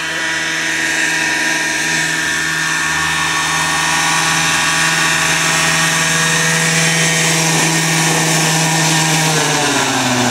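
Petrol engine, four-blade main rotor and Fenestron tail fan of a radio-controlled Vario Dauphin model helicopter running steadily in a low hover. About nine seconds in, the pitch drops as it sets down on the grass and the engine slows.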